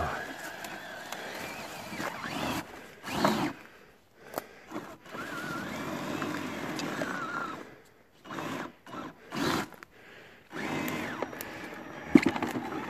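Traxxas TRX-4 RC crawler with a brushless motor driving over dry leaves and sticks: a thin motor whine that rises and falls with the throttle, broken by brief crunches and scrapes as the tyres and chassis go over the debris.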